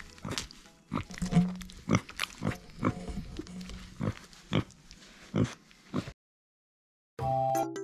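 Micro pig snuffling with her snout at a wire pen, with a few short low grunts and repeated sharp clicks and knocks about every half second. The sound cuts off about six seconds in, and background music starts about a second later.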